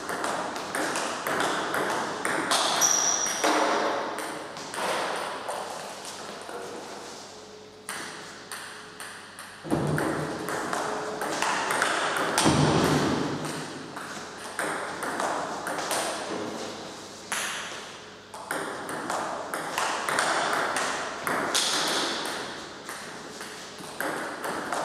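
Table tennis rally: the celluloid-type ball clicking off the rubber bats and bouncing on the table in a quick, steady rhythm, with a backhand topspin being played against backspin balls.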